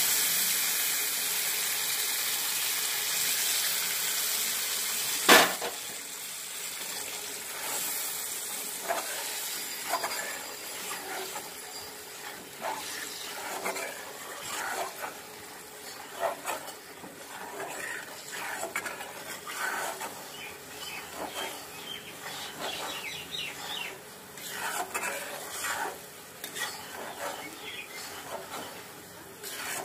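Spice paste sizzling hard in a pan just after hot water has gone in, settling after about five seconds into a softer sizzle. A sharp knock comes about five seconds in. After that a metal spatula stirs and scrapes the pan in short, repeated strokes.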